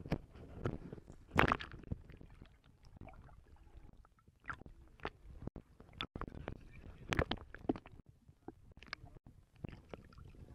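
Water sloshing and gurgling close to the microphone as a sturgeon is held in the water against a boat's hull, with irregular sharp splashes and knocks, the loudest about a second and a half in.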